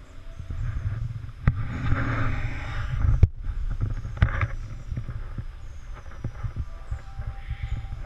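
Rumble and knocks from a handheld camera being moved, over the trickle of a small stream running across pebbles. The sound cuts out for a moment about three seconds in, and faint high chirps come and go later on.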